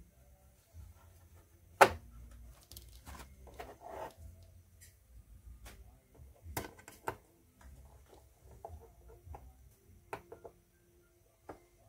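Scattered knocks and clacks of hard objects being handled and set down, the loudest about two seconds in and two more close together near the middle, with light rustling and handling noise between them.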